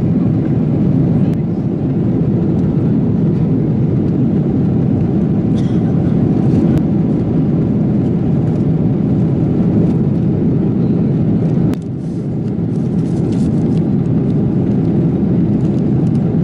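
Steady cabin noise of a Boeing 777-300ER in cruise: a deep, even rush of engines and airflow, with a few faint rustles of paper and food wrappers over it.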